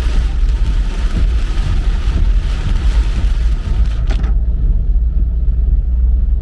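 Car driving in rain: a steady low road rumble under a hiss of rain. The hiss cuts off suddenly about four seconds in while the rumble goes on.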